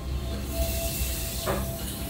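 Background music with sustained notes, joined about half a second in by a steady hiss.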